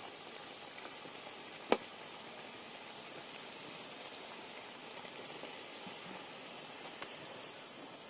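Potato-and-egg fritters deep-frying in hot oil in a kadai: a steady bubbling sizzle. One sharp click a little under two seconds in, and a fainter one near the end.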